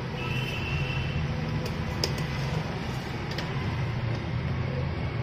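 Steady low hum of background noise, with a faint high tone lasting about a second near the start and a few faint light clicks as a handheld digital multimeter is handled.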